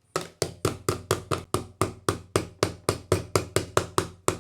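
Rapid, evenly spaced knocking on a Bluetooth speaker's casing, about four or five knocks a second, as a part is tapped home until it sits properly.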